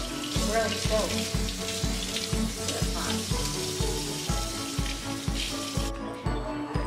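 Background music with a steady beat, over the hiss of a kitchen faucet sprayer running water as a puppy is rinsed in the sink; the water hiss cuts off about six seconds in.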